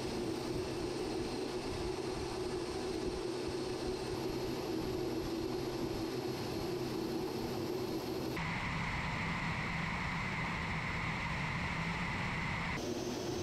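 Steady noise of a Su-35S fighter's jet engines and rushing air in flight, picked up by a camera mounted on the aircraft. About eight seconds in the sound shifts to a higher steady whistle for some four seconds, then goes back to the lower hum.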